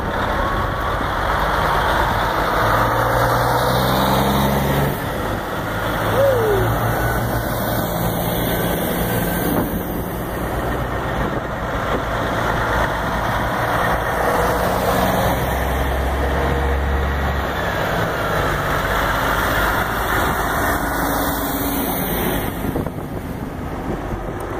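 A convoy of heavy diesel semi trucks driving past one after another at low speed, their engines running steadily.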